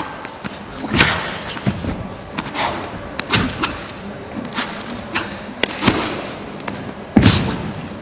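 Sharp slaps and thuds from a nanquan (southern fist) routine: the competitor's hand strikes and foot stamps on the competition carpet, about a dozen at irregular intervals, the heaviest one about seven seconds in as he goes into a jump.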